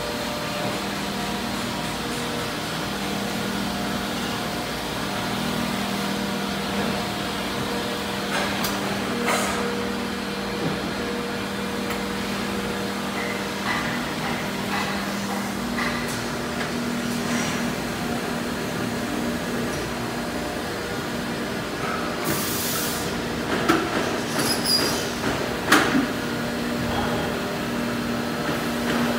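Injection moulding machine running: a steady machine hum with held tones, broken by occasional knocks and clanks. A short hiss comes about two-thirds of the way through, followed by a few louder clanks.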